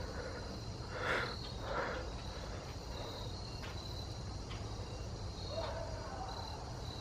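Crickets chirping in short, evenly repeated pulses, with two brief rustles about one and two seconds in.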